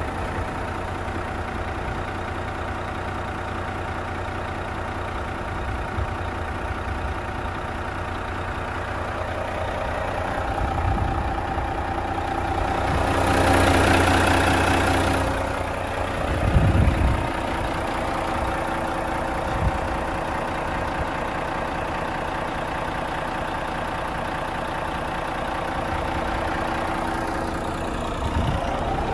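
Renault T460 tractor unit's 11-litre six-cylinder diesel idling steadily, growing louder for a few seconds around the middle, with a couple of short knocks soon after.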